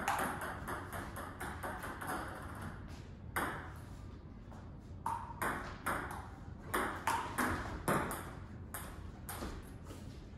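Table tennis ball clicking back and forth between rubber paddles and the tabletop in a rally. Quick light clicks fill the first three seconds, then louder single clicks come about every half second to a second, some ringing briefly.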